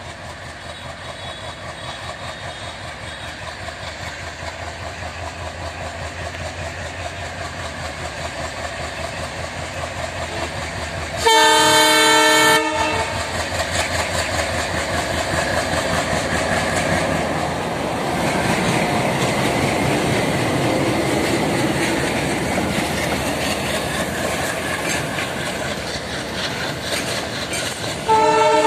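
Indian Railways WDM3D ALCO diesel locomotive's engine chugging as it slowly accelerates an empty freight train, growing louder as it approaches. About eleven seconds in it gives one horn blast of over a second, then runs past loudly, and a second horn blast starts near the end as its wagons roll by.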